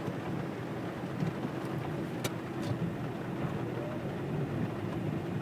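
Car engine running, heard from inside the cabin as a steady low rumble, with a faint click or two about two seconds in.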